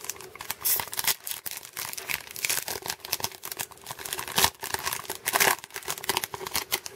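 Foil wrapper of a Topps Chrome baseball card pack crinkling and tearing as fingers pull it open, a quick run of sharp crackles.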